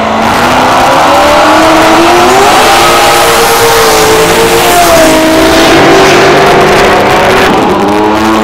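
Drag car engine at full throttle launching off the line: its pitch climbs, drops at a gear change about five seconds in, and climbs again, over a steady lower engine drone. Near the end a second V8 revs up in a burnout.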